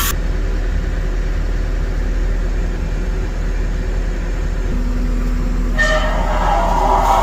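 Diesel engine of a John Deere 333 compact track loader running steadily with a deep rumble, heard from the operator's seat. Near the end a higher, horn-like tone sounds for about two seconds.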